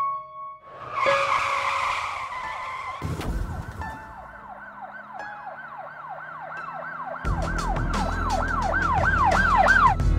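Car tyres screech briefly about a second in. Then an emergency-vehicle siren yelps, rising and falling about three times a second and growing louder, with a low rumble joining about seven seconds in.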